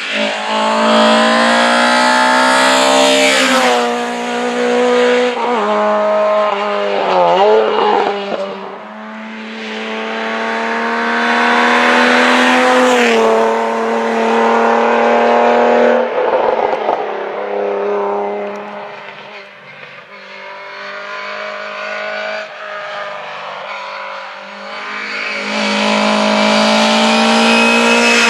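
Rally cars passing at speed, one after another. The engines are revved hard and their pitch drops at each gear change, and the sound swells three times as the cars go by. The last swell comes from a Lada 2107's four-cylinder engine approaching under full throttle.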